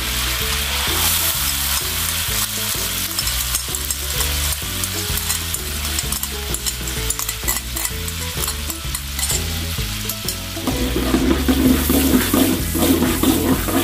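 Sauce and fried garlic sizzling in a wok, with a metal spatula scraping and stirring in the pan, busier in the last few seconds. Background music plays underneath.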